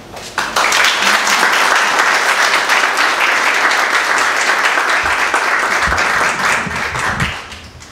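Audience applauding: many hands clapping at once. The applause starts about half a second in and dies away near the end.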